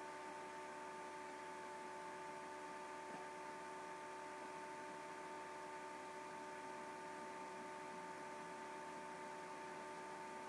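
Faint steady electrical hum with a few fixed tones over a low even hiss: a recording's noise floor, with no sound of paddling or water.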